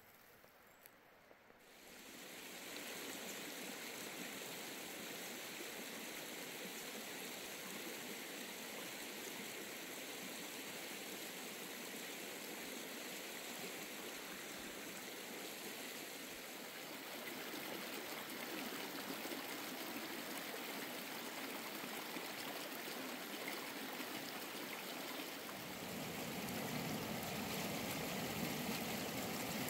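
Water running in a stream, a steady rushing that comes in about two seconds in and grows fuller near the end.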